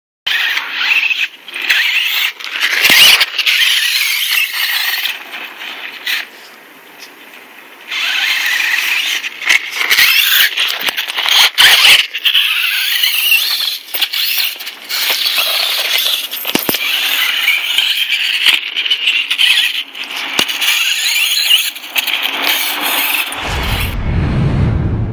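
Traxxas LCG Slash RC truck driven hard over dirt, its motor and drivetrain giving a high-pitched whine that rises and falls with the throttle, with scattered sharp knocks. Near the end a deep boom comes in.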